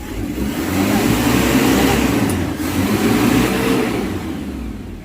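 Isuzu Trooper's engine revving up and back down twice, its pitch climbing and falling each time.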